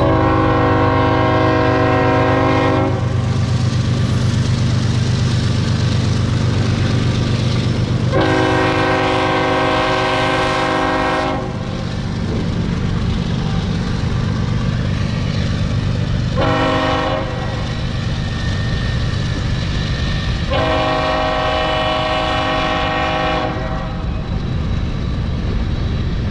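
Norfolk Southern freight locomotives passing with the air horn sounding the grade-crossing signal: two long blasts, one short and one long. Under the horn is the steady low rumble of the diesel locomotives and rolling cars.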